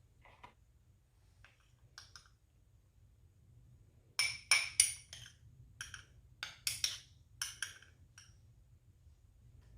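Kitchenware clinking: a few faint clicks, then a run of about a dozen sharp, ringing clinks starting about four seconds in.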